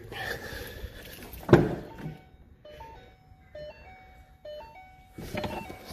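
A car door clunks open about a second and a half in. After it, a simple electronic tune of single beeping notes plays, stepping up and down in pitch.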